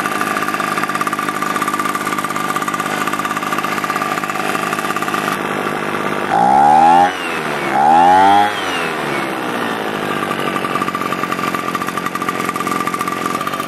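Echo PB300E backpack leaf blower's two-stroke engine idling steadily on its freshly rebuilt carburetor, with the idle speed screw just turned in. About six and eight seconds in it is revved up twice, each rev rising in pitch for about a second and falling back to idle.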